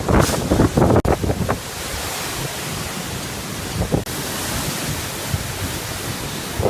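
Typhoon-force wind buffeting the microphone in heavy gusts, settling after about a second and a half into a steady rushing roar of wind.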